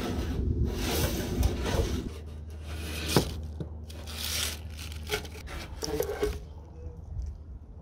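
Plastic scoop of a long-handled gutter cleaner scraping along a metal rain gutter and rustling up wet leaves, in a series of uneven strokes, with a sharp knock about three seconds in.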